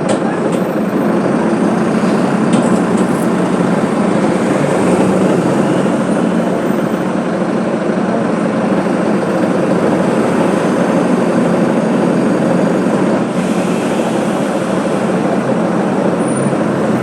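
Mercedes-Benz OF 1721 BlueTec 5 bus engine running steadily, a continuous low hum under a loud, even rumble.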